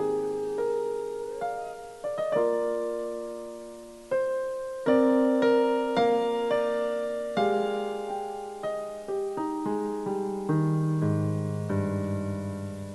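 Piano playing a slow instrumental introduction: single notes and chords struck one after another, each left to ring and fade.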